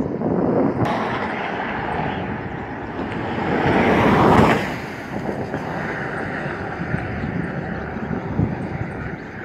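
A road vehicle passing close by, its rushing noise rising to a peak about four seconds in and falling away quickly, followed by a steady lower rumble.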